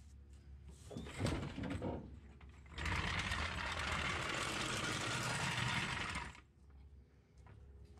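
Hydraulic floor jack being let down, lowering the pickup's front end onto its wheel: a short mechanical sound about a second in, then a steady hiss for about three and a half seconds that cuts off suddenly as the jack bottoms out.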